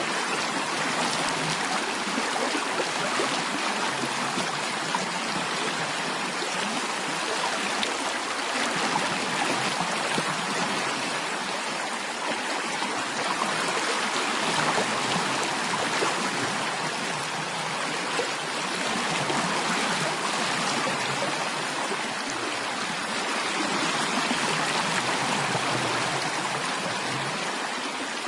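Steady rushing of flowing stream water, an even, unbroken wash of sound.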